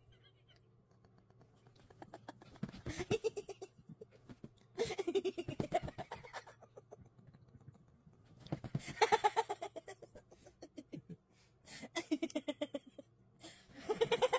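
Pomeranian growling in play while worrying a toy: five short bouts of rapid, throaty grumbling, each about a second long, with brief pauses between them.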